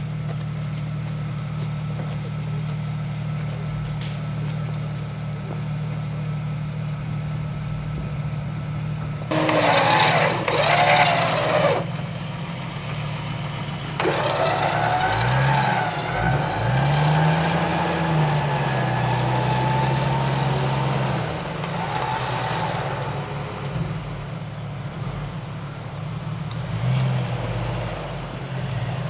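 Jeep Cherokee XJ engine idling steadily while the stuck Jeep is winched out. About ten seconds in there is a short, loud burst of revving, and from about fourteen seconds the engine rises and falls in pitch under load for several seconds, with a higher whine running alongside it.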